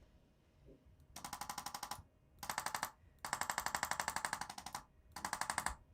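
Hand-held electric chiropractic adjusting instrument firing rapid, even taps at about eleven a second, in four bursts with the longest in the middle. It is a low-force adjustment, loosening a stuck, misaligned spot in the spine without cracking it.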